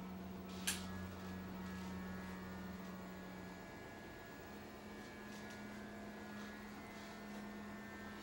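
Electric hair clipper or trimmer humming steadily as it works along the beard line, its pitch stepping up slightly about four seconds in. One sharp click a little under a second in.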